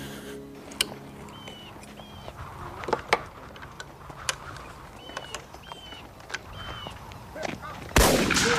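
A few faint short chirps and scattered sharp clicks, then one sudden loud gunshot about a second before the end.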